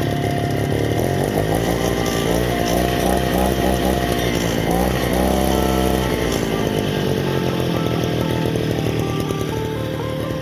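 Two-stroke brush cutter engine running, its pitch rising and falling as it is revved between about one and seven seconds in, with music playing underneath.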